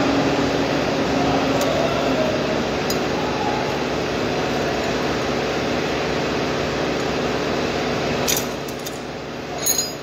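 A machine runs with a steady hum at a fixed pitch, then drops off about eight seconds in; metal hand tools clink a few times near the end.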